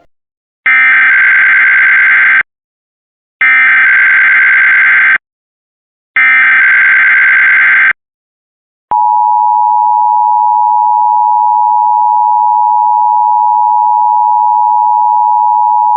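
Emergency Alert System header for a monthly test. Three bursts of SAME digital data tones come first, each under two seconds with about a second's gap between them. Then, about nine seconds in, the steady EAS two-tone attention signal starts.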